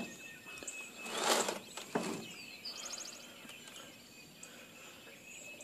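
Faint dawn birdsong from several birds, with short chirps and a quick trill. A brief rustling noise comes about a second in, and a shorter one just after.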